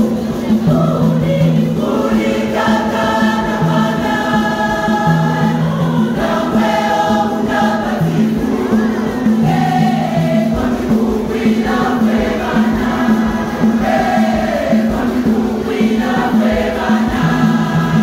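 Mixed choir singing a hymn in multi-part harmony, with sustained chords shifting every second or two, accompanied by tall wooden hand drums.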